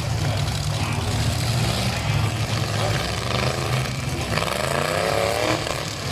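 Demolition derby truck engines running in a steady low rumble, with one engine revving up, its pitch rising, about four and a half seconds in.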